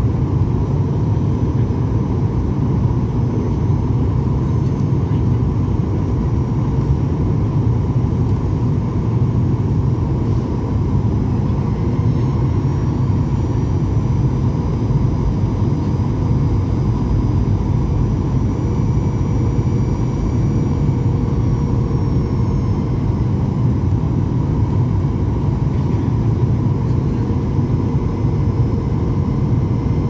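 Steady, loud jet engine rumble from a Boeing 737-800's CFM56 turbofans, with a faint high whine that bends gently up and down through the middle.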